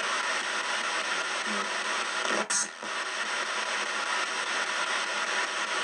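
Radio static from a PSP-7 ghost box, a radio sweeping stations in reverse, played through stereo speakers: a steady hiss broken by a sudden short dropout about two and a half seconds in. Within it is a muffled fragment that the operator captions as a spirit answering "yes".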